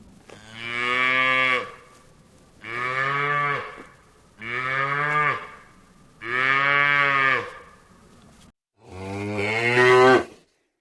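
Cow mooing five times, each moo lasting about a second, with pauses between them.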